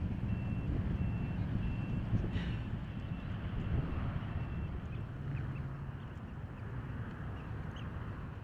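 Distant vehicle backup alarm beeping about twice a second, stopping about four and a half seconds in, over a steady low rumble.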